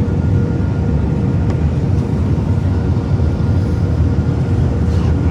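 Steady cabin noise of a passenger jet on its descent with the landing gear down: a loud, even low rumble of engines and airflow, with a faint steady hum above it.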